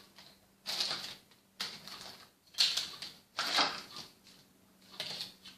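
Small plastic toy accessories being handled, with about five short bursts of clicking and rustling, roughly one a second.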